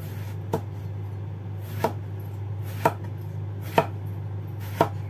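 Kitchen knife slicing through a large eggplant and knocking on a plastic cutting board, five cuts about a second apart, over a steady low hum.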